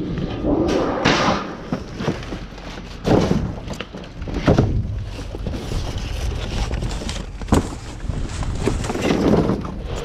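Rummaging through a dumpster of cardboard boxes and trash: rustling and crunching of cardboard and debris, with several thuds and knocks, sharpest about a second, three seconds, four and a half seconds and seven and a half seconds in.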